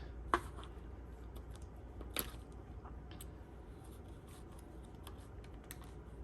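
Faint, scattered plastic clicks and scratching as an old ear pad is pried and pulled off a Beats headphone ear cup, where sticky tape holds it fast. The sharpest clicks come about a third of a second in and just after two seconds.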